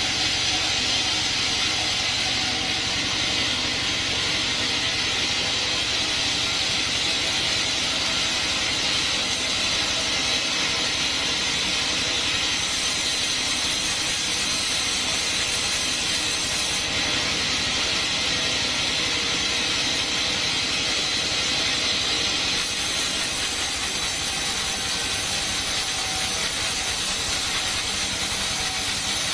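Sawmill band saw cutting through a coconut-palm log: a steady hissing rasp of the blade over the hum of the machine's motor.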